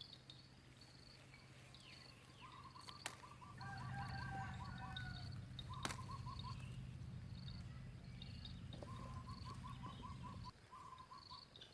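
Rural outdoor ambience: a bird gives several bursts of quick trilled notes over high chirping insects, with a low steady hum that stops near the end and two sharp clicks.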